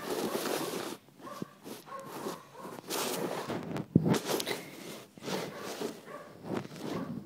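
Irregular rustling and clattering from small plastic toys being handled, with a sharp click about four seconds in.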